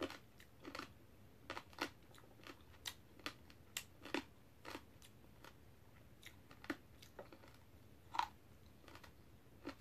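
Close-up eating sounds of a person chewing a mouthful: faint, irregular mouth clicks and smacks, about one or two a second.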